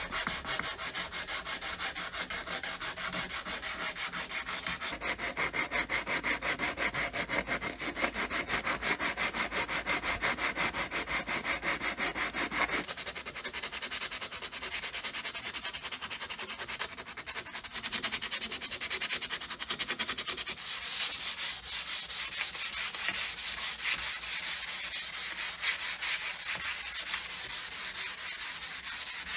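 Sanding of the rusty car air pump's parts: continuous abrasive rubbing. The character changes abruptly about 13 seconds in and again about 21 seconds in.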